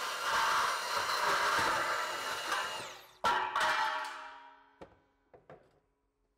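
Milwaukee M18 CBS125 cordless band saw cutting through galvanised steel trunking, then winding down nearly three seconds in as the cut finishes. A loud metallic clatter follows, then a few lighter clinks of sheet metal ringing briefly.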